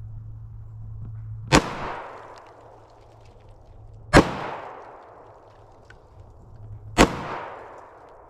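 Kimber Shadow Ghost .45 ACP pistol fired three single shots, a little under three seconds apart, each followed by a long echo dying away.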